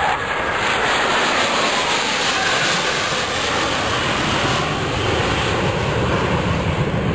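Jet noise from Blue Angels F/A-18 Hornets flying past in formation: a loud, steady rush with a faint whine that falls slowly in pitch as they pass.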